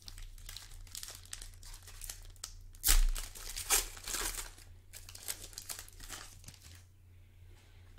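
Plastic-foil wrapper of a basketball card pack crinkling and tearing as it is ripped open by hand, with the loudest rip about three seconds in and quieter rustling of the cards being pulled out near the end.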